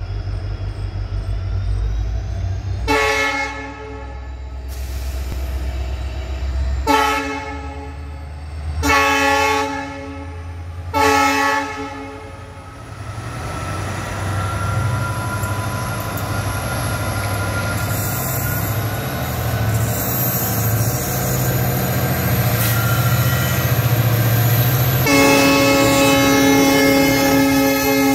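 WDP4B diesel locomotive, with its EMD two-stroke engine, approaching and passing at speed. Four short horn blasts in the first twelve seconds, then the engine's low rumble building as it nears, and one long horn blast held from about 25 seconds in as the locomotive draws level.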